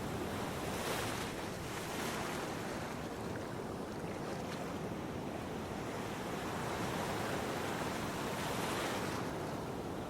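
Big ocean waves breaking and washing ashore: a continuous rush of surf that swells several times.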